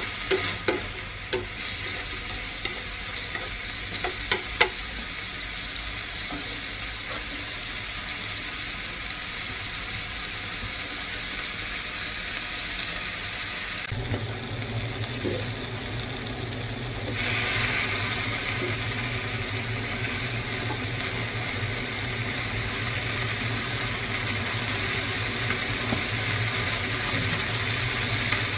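Buffalo meat sizzling as it stir-fries in a frying pan, with a few sharp clicks of the utensil against the pan in the first seconds. About halfway the sound changes: a steady low hum comes in, and a few seconds later the sizzle grows louder as water spinach fries in the pan.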